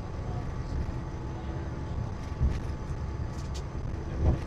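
Walt Disney World Mark VI monorail train running along the beam, heard from inside the cabin: a steady low rumble with two heavier thumps, one about halfway through and one near the end.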